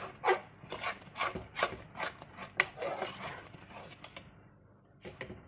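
A metal spatula scraping and stirring thick gram-flour dough around a dry aluminium kadhai, in short rasping strokes about two or three a second. The strokes die away about four seconds in.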